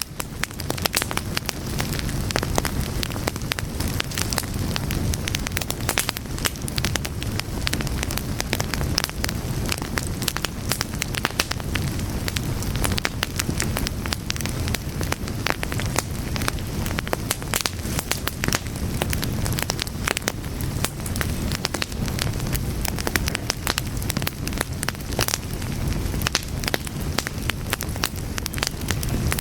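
Fire crackling: a dense, irregular run of sharp pops and snaps over a steady low rush of burning flames.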